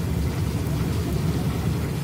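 Steady low rumble and hiss inside a 489-series electric express train car, with no distinct events.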